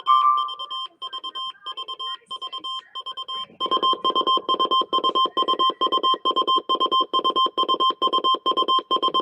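Weather radio alert alarm: rapid electronic beeping, several pulses a second around a steady high tone. It gets louder about three and a half seconds in.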